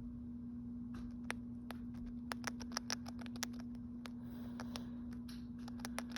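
Light, irregular taps and clicks in quick succession, starting about a second in, over a steady low hum.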